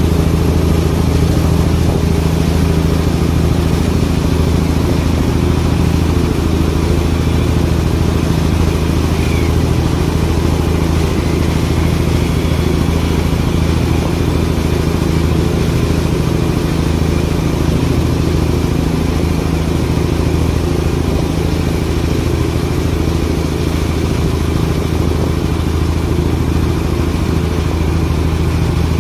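An engine running steadily with an unchanging low drone.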